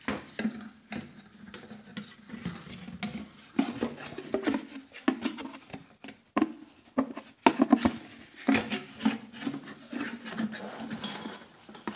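Metal parts of a homemade blender (shaft, washers, bearing) being fitted into a jar by hand: irregular clinks, knocks and rubbing. There is a quick run of louder clinks about two-thirds of the way through.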